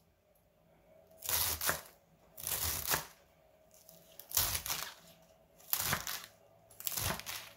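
Chef's knife chopping through romaine lettuce on a wooden cutting board: five bursts of crisp, crunchy crackling, about one every second and a half, as the blade cuts the leaves against the board.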